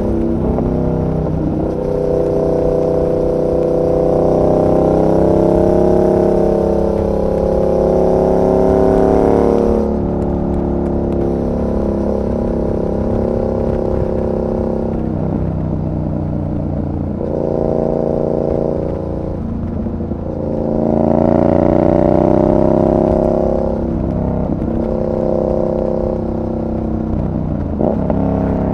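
2019 Yamaha MT-07's 689 cc parallel-twin engine on the move, its revs climbing and falling back several times as the rider accelerates, shifts and rolls off the throttle. There is a marked drop in revs about a third of the way in.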